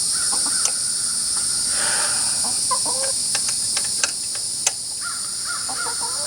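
A steady high-pitched insect chorus, with short bird calls and several sharp clicks of hand tool work, Allen wrenches on the backrest bolts. The loudest click comes near the end.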